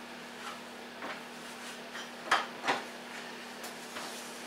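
A few light clicks and knocks of parts being handled on a worktable, with two sharper knocks a little past the middle: the end plates of a CNC router frame being fitted against its MDF bed.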